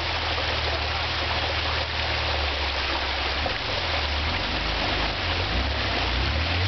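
Jeep Wrangler's engine running at low revs as it crawls over a rock ledge, its note shifting about halfway through and climbing near the end. Under it, the steady rush of creek water.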